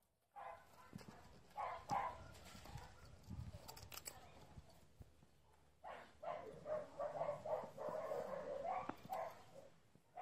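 An animal vocalizing in two bouts, the first about two seconds long and the second about four seconds long, with a few short knocks in between.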